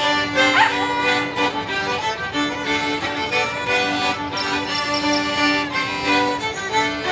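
Live fiddles and a squeezebox playing a lively Border Morris dance tune, with a brief high rising cry about half a second in.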